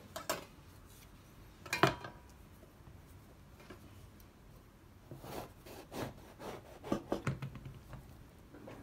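A knife cutting the top off a banpeiyu, a giant pomelo, on a wooden cutting board. There are rasping strokes through the thick rind and knocks of the fruit and blade against the board; the sharpest knock comes about two seconds in, and a run of strokes falls in the second half.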